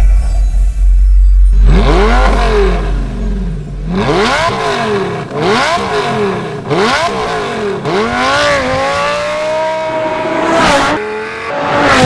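Sports car engine revved through a Borla exhaust: about four quick blips, each rising and falling in pitch, then a longer climb held at high revs that cuts off sharply near the end.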